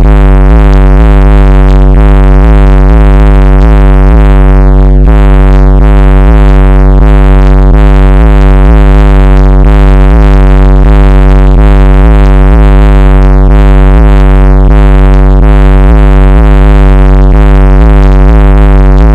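A bass track playing very loud through a 10-inch JVC subwoofer in a fourth-order bandpass box, with the deep bass pulsing about three times a second. The recording is overdriven by the level, so the bass comes through distorted and buzzy.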